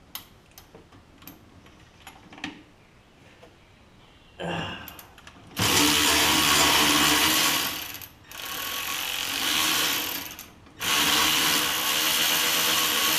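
Cordless power ratchet backing out a bolt, its motor running in several bursts starting about four seconds in, with the longest, loudest runs in the middle and at the end. Before it, light clicks and taps of tools on metal.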